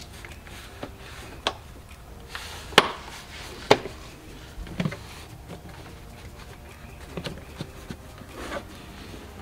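Plastic interior trim clips snapping home and a rubber door seal rubbing as the side trim and weatherstrip along the door opening of a Hyundai Santa Fe are pressed back into place by hand. Several sharp clicks, the loudest two about three and four seconds in.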